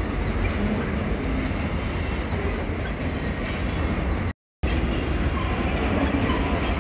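Freight train of covered grain hopper wagons rolling past close by: a steady, loud rolling noise of wheels on rail, heaviest at the low end. The sound drops out completely for a moment about four seconds in.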